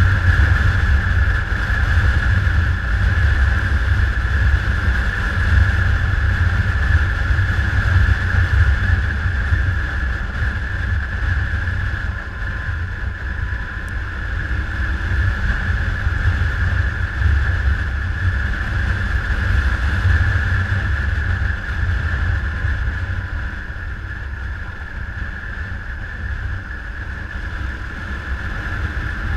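Motorcycle riding steadily, its engine rumble mixed with heavy wind noise on the microphone. The level eases a little about three quarters of the way through.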